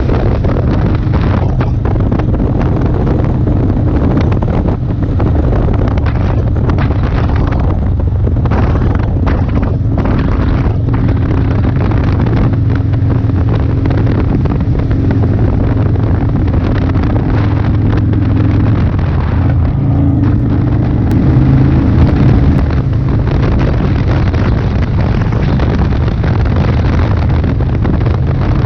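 Motorcycle engine running steadily at cruising speed, with wind buffeting the microphone; it gets a little louder about three quarters of the way through.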